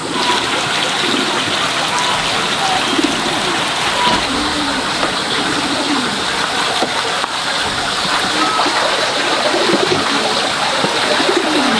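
Steady rushing water noise, with short low bird calls now and then.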